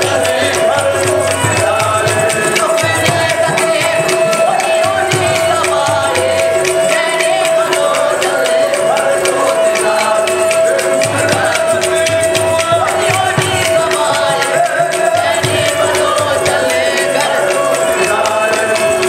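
Sindhi qawwali-style Sufi devotional music: a harmonium holding a steady drone note under group singing, with a fast, dense rhythm of hand-held clappers and drum.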